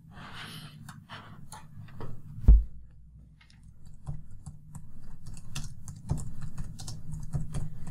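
Typing on a computer keyboard: a run of quick key clicks, coming thick and fast in the second half. A single heavy thump about two and a half seconds in is the loudest sound.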